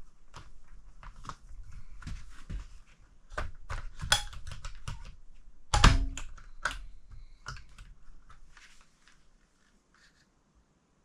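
Irregular plastic and metal clicks, taps and knocks of a window blind's headrail being pushed and fiddled at its mounting brackets, with one louder knock about six seconds in. The blind will not snap in because the brackets are mounted backwards.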